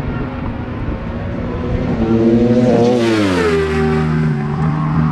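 A racing motorcycle passes at high speed: its engine note swells and then drops sharply in pitch as it goes by, about halfway through. A steadier engine drone runs underneath.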